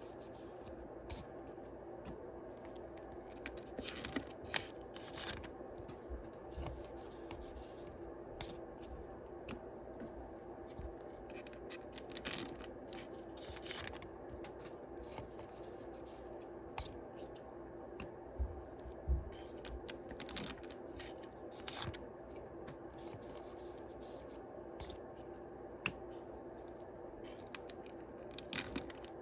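Yu-Gi-Oh! booster packs being opened and their cards handled: scattered short rustles, tearing and clicks of the pack wrappers and cards, over a steady low hum.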